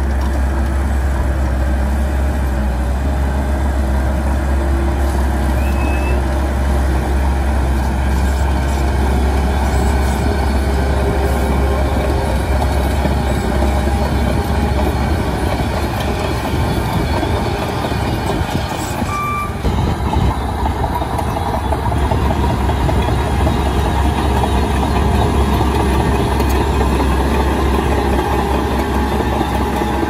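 Shantui DH17 C2 LGP crawler bulldozer's diesel engine running steadily under load as it pushes a pile of soil, with the clatter of its steel tracks.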